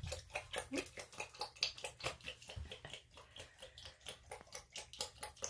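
A Virginia opossum lapping water from a plastic bowl: quick, even, loud laps, about four to five a second.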